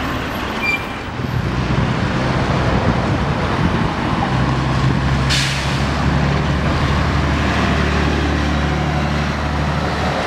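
A diesel double-decker bus engine pulls past, growing stronger and steady from about four seconds in. A short hiss of air from the bus's air brakes comes about five seconds in.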